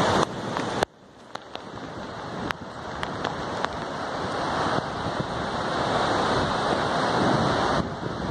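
Steady rushing noise of heavy rain and a torrent of muddy floodwater running down a street, with wind buffeting the microphone. The noise drops about a second in, then grows gradually louder.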